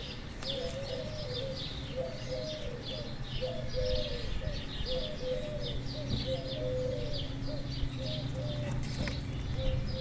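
Garden birds calling: a run of short, low cooing notes repeated every half-second or so, with higher chirps from small birds throughout.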